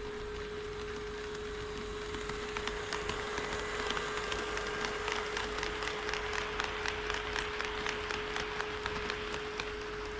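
HO scale model train rolling past close by on KATO Unitrack, its wheels clicking over the rail joints in a quick, uneven run of ticks over a rolling hiss; it builds about two and a half seconds in and fades near the end.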